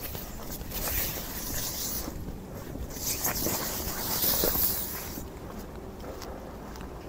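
Wet city street noise in the rain: a hiss that swells about a second in and again more strongly between three and five seconds in, then eases off.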